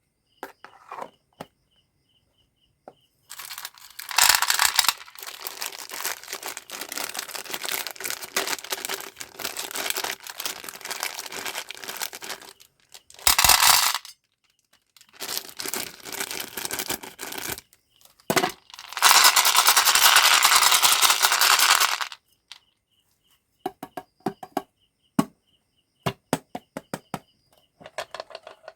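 Sweets packaging being handled and torn open, in several long crinkling, tearing stretches, with small clicks and taps of the sweets and wrappers between them and near the end.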